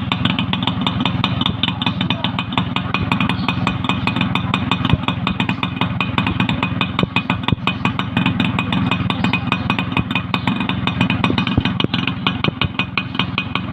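Yamaha YB100's single-cylinder two-stroke engine running steadily, its exhaust firing in rapid, even pulses.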